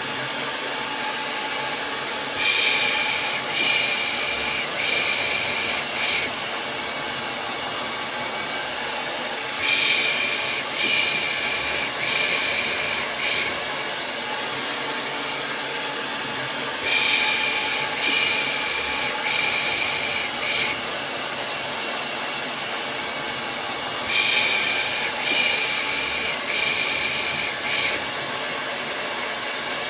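Hair dryer running with a steady whooshing hum, overlaid with a person shushing 'shh-shh-shh-shh' in groups of about four, a group every seven seconds or so: a looped white-noise track for soothing a baby to sleep.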